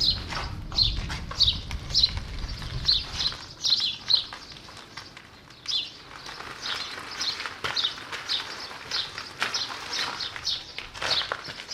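Birds chirping repeatedly, several short calls a second, with a low rumble for the first few seconds.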